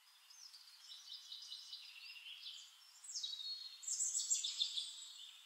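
Faint birdsong: several birds chirping and whistling in short overlapping phrases, growing busier about halfway through.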